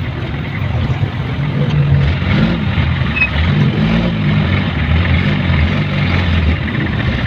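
Vehicle engine running in slow stop-and-go traffic, heard from inside the cab, its pitch rising and falling a few times as it speeds up and eases off.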